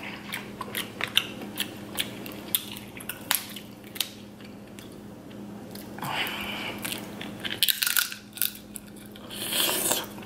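Snow crab leg shells cracking and snapping as they are broken apart by hand and the meat is pulled out, a close-up run of sharp, irregular clicks and cracks.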